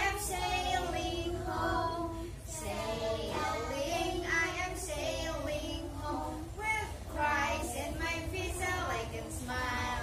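A group of young children singing an action song together, with a woman's voice singing along. A steady low hum runs underneath.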